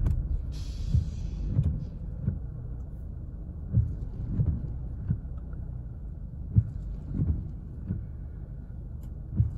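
Car cabin noise while driving slowly on a wet road: a steady low rumble of engine and tyres. About a dozen light taps come at irregular intervals, and there is a short hiss about half a second in.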